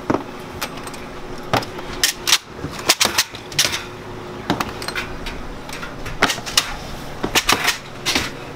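Antique hard-candy chopper clacking as a rope of hot orange candy is fed across its grooved rollers and chopped into small pieces. It makes irregular sharp knocks, sometimes two or three close together, over a steady hum.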